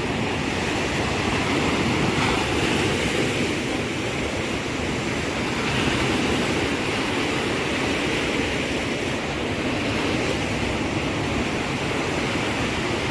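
Sea surf washing up a sandy beach: a steady rushing of waves that swells and eases every few seconds.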